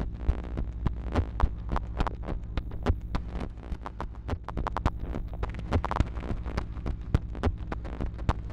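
Live electronic music from a modular synthesizer: a steady low hum-like drone under a rapid, uneven stream of sharp clicks and ticks.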